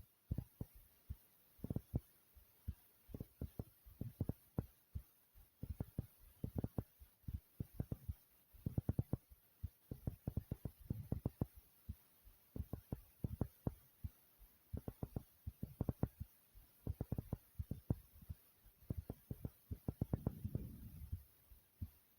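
A human heartbeat recorded up close, thumping pretty hard: repeated low thumps in quick pairs and clusters. A brief rubbing noise comes in near the end.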